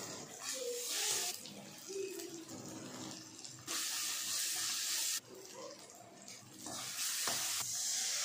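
Kitchen tap running in three spells of a second or two each. The middle spell starts and stops abruptly as the tap is turned on and off.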